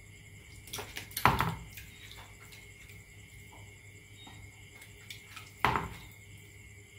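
Water splashing in a plastic basin as a hand handles a rubber-band paddle boat and its stick paddles churn the surface, with two louder splashes, about a second in and near the end, and smaller ones in between.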